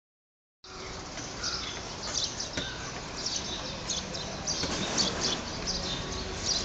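Small birds chirping in many short, irregular calls over a steady low street rumble, with a couple of faint knocks.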